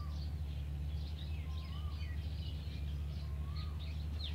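Small birds chirping and calling again and again over a steady low hum.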